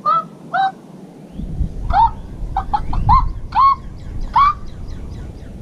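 A series of short chicken-like 'bok' clucking calls, two near the start and then a quick run of about six. A low rumble joins underneath just after a second in.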